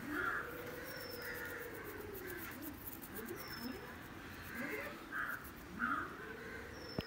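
Crows cawing repeatedly, with thin, high, falling chirps from small birds and two long rising-and-falling lower calls. A single sharp click near the end.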